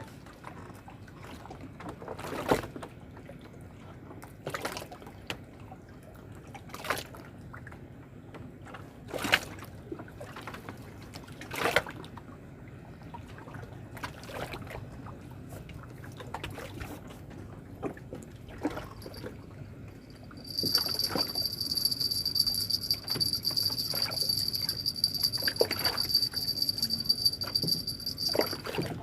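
Water splashing and sloshing in short strokes, about one every two seconds. Over the last third a steady high-pitched whine comes in and stops shortly before the end.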